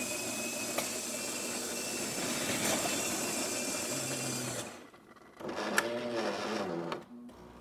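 Jura Impressa S9 super-automatic espresso machine grinding beans for a test espresso after a tune-up for a grinder that had been jamming with beans. The built-in grinder runs steadily for about four and a half seconds and stops. After a brief pause the machine's motor runs again for about a second and a half, its pitch rising and falling.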